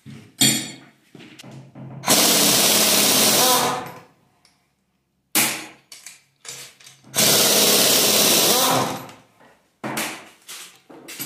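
Compressed-air tool run in two bursts of about one and a half to two seconds each, a loud hiss-and-buzz that starts and stops abruptly, with short metallic knocks and clatter between the bursts.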